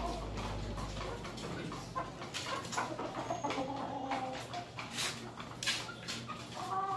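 Chickens clucking in their coops, short calls scattered through, with sharp clicks and taps between them. A low hum fades out about two seconds in.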